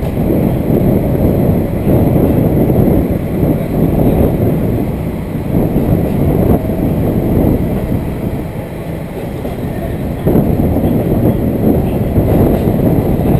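Diesel railcar running on the line, heard from inside the car: a steady low rumble of wheels on rail and the running engine that swells and eases slightly.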